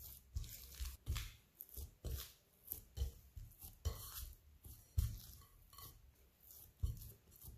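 Hands kneading soft, sticky bread dough enriched with olive oil in a glass bowl: irregular wet slaps and squelches, about two a second, with low thuds of the bowl.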